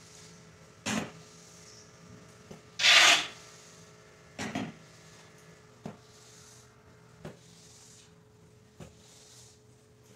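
Floor squeegee being pushed through muddy water on a tiled floor: a few short scrapes and knocks as the blade is set down and dragged, the loudest a half-second scrape about three seconds in, then smaller taps.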